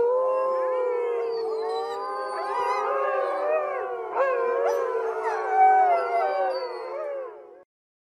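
Gray wolves howling in chorus, several long gliding howls at different pitches overlapping one another. The chorus cuts off suddenly near the end.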